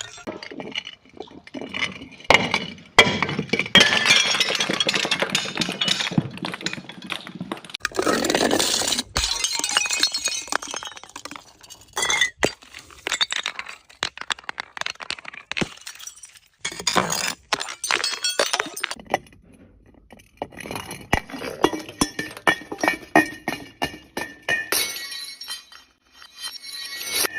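Glass bottles breaking and clinking: many sharp glass impacts and crunching shards, with denser crackling stretches in the first half. In the second half come rapid repeated clinks with ringing glass tones.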